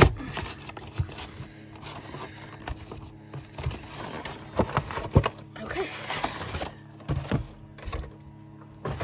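A cardboard collection box being torn and pried open by hand: irregular scraping, tearing and knocks of card. Faint background music plays underneath.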